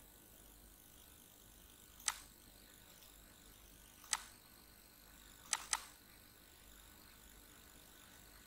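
Computer mouse clicking: two single clicks about two seconds apart, then a quick double click.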